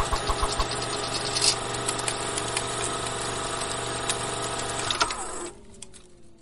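Sound effect of a film projector running, a steady mechanical whirr and clatter, which cuts off about five seconds in, leaving a faint falling hum.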